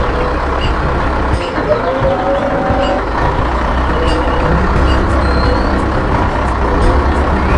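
Heavy construction machinery running: a steady low engine rumble with a wavering whine above it and faint scattered clicks.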